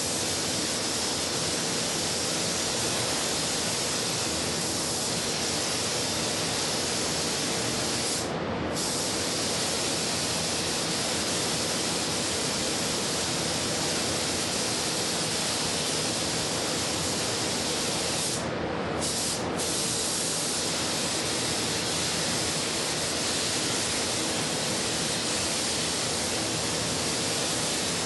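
Air spray gun hissing steadily as it sprays ArmorCoat coating onto a truck panel, with brief breaks in the hiss about eight seconds in and twice near the middle as the trigger is let off.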